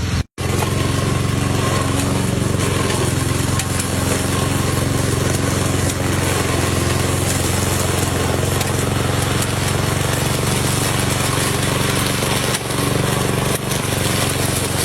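Lawn mower engine running steadily, with a momentary cut-out about a third of a second in.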